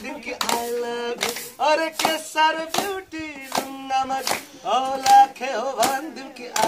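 Unaccompanied singing of a Nepali song, with a group clapping along to a steady beat.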